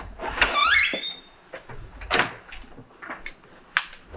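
A door opening, with a rising hinge squeak near the start, then several sharp knocks and clicks.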